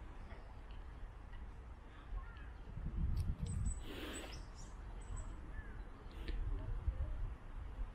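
Birds calling outdoors, with a louder noisy call about halfway through and a few short high chirps. A low rumble comes and goes underneath.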